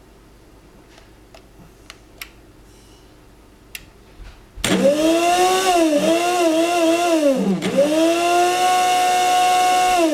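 A few faint clicks, then about four and a half seconds in an electric grinder motor in a Cuisinart coffee maker starts and runs loudly with a wavering whine. It dips briefly about three seconds later, runs steady again, then winds down with falling pitch near the end.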